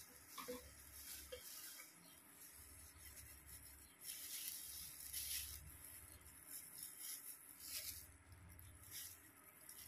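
Faint rustling of hair being parted with a tail comb and handled with plastic-gloved hands: several short, soft swishes. A low hum comes and goes underneath.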